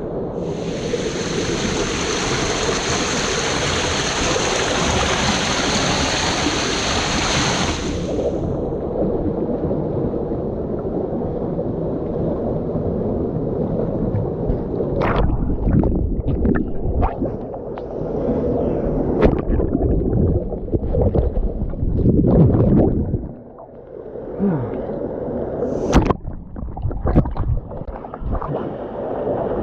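Steady rushing water of a waterfall, bright and full for about eight seconds, then abruptly turning muffled and low, with scattered sharp knocks later on.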